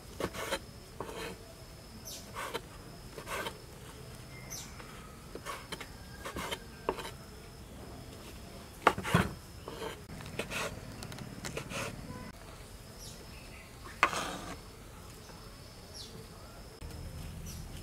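Kitchen knife slicing soaked dried shiitake mushrooms on a wooden cutting board: irregular knocks of the blade against the board, two of them louder, about halfway through and near three quarters. A high insect chirp repeats about once a second in the background.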